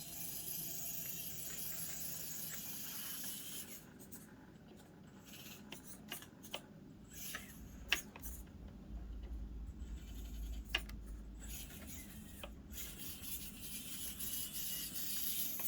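Axial SCX24 1/24-scale RC crawler working over an obstacle course: a faint high hiss from its small motor and drivetrain with tyres scraping and rubbing over the course surface. The hiss drops away for several seconds in the middle, where a few sharp clicks and a low rumble come through.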